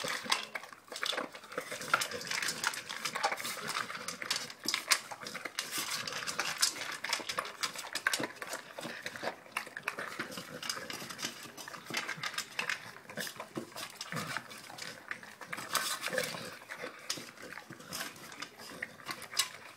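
American Staffordshire terrier eating from his food bowl: steady, irregular chewing and clattering of the bowl.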